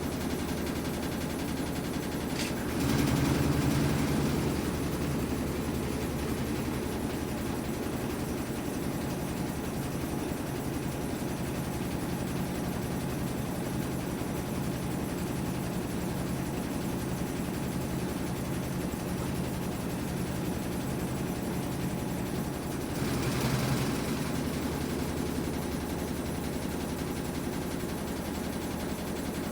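Whirlpool top-loading washing machine running through its drain and spin cycle: a steady motor hum that briefly swells louder twice, about three seconds in and again some twenty seconds later.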